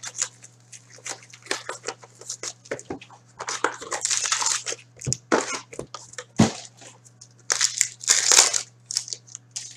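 Hockey card pack wrappers crinkling and being torn open, with packs and cards being handled: a run of short crackles, plus two longer bouts of tearing and crinkling about three and a half seconds and eight seconds in.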